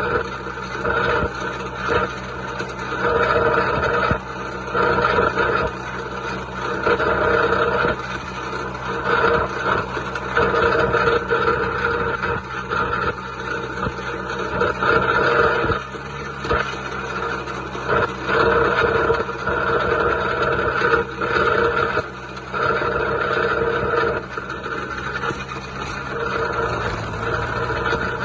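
John Deere 2130 tractor's diesel engine running steadily, with a higher sound that swells and fades every second or two.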